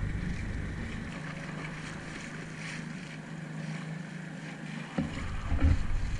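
Small outboard motor pushing an inflatable dinghy, running at a steady hum with wind and water noise. A knock comes about five seconds in, followed by heavier low wind rumble.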